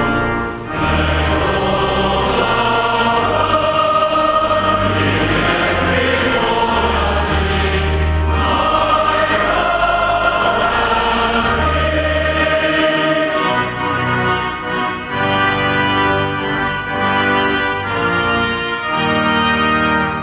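Choir singing with accompaniment, held low bass notes changing every couple of seconds beneath the voices; in the second half the notes come shorter and more separated.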